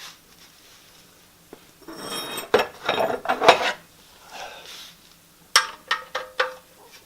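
Metal hand tools clattering and clinking while the oil drain plug is refitted with a new seal: a burst of rattling clinks about two to four seconds in, then four or five sharp separate clinks near the end.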